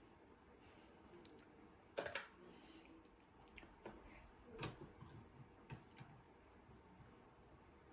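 Faint room tone broken by a handful of short clicks and knocks: a double knock about two seconds in, the loudest one a little past halfway, and lighter ticks around six seconds.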